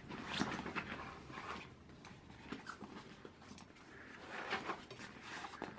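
Faint rustling and scraping of a nylon camera backpack being handled and turned over on a table, with a sharp click just before the end.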